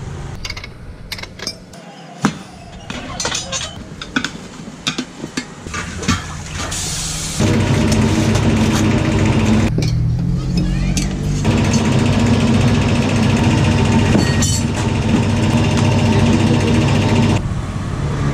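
Scattered metallic clicks and clinks, then from about seven seconds in an engine running steadily for about ten seconds before it drops away.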